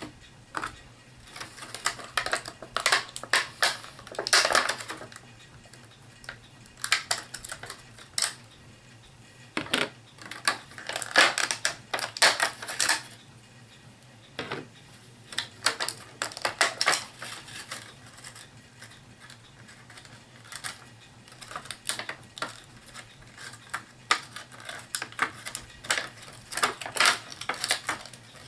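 Plastic miniature figures and booster packaging being handled. Clusters of quick plastic clicks and rattles come in several bursts with short pauses between.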